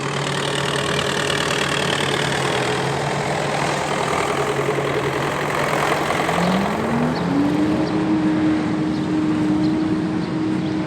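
Tractor engine running steadily at idle, then revving up about six seconds in and holding at a higher speed.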